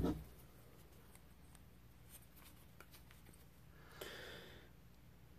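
Quiet handling of a leather knife sheath and a steel ruler: a knock fading out at the start, a few faint light clicks, and a short rustle about four seconds in.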